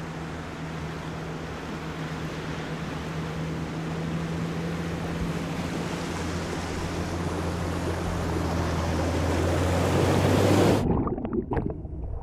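Mercedes-Benz G-Class SUV wading through deep water: a steady engine hum under the rush of water pushed ahead of the body, growing louder as it approaches. Near the end it cuts off suddenly, followed by a few splashes.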